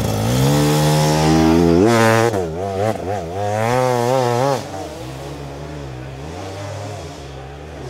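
Hard enduro dirt bike engine revving hard under load, its pitch climbing and then surging up and down with the throttle. About four and a half seconds in it drops to a quieter, steadier note as the bike moves away.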